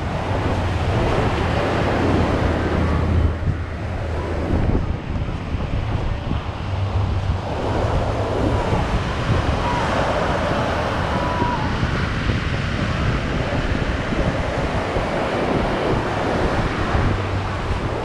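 Ocean surf breaking and washing on a sandy beach, a steady rushing noise, with wind buffeting the microphone on and off.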